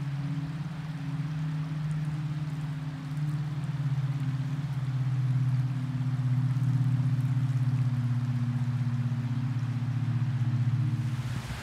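Creek rapids rushing below, with a steady low engine drone over the water; the drone stops near the end.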